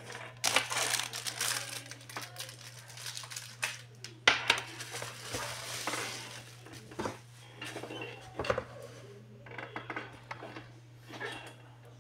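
Plastic bubble wrap crinkling and rustling as it is pulled off a round digital wall clock, with knocks and clicks from the clock's plastic case being handled. The loudest crinkling starts about half a second in and again around four seconds in, where a sharp knock stands out.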